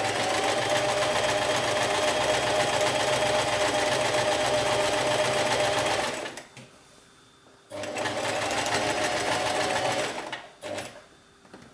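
Electric household sewing machine sewing a zigzag stitch to overcast a seam edge, running steadily for about six seconds, stopping briefly, then running again for about two and a half seconds, with a short burst near the end.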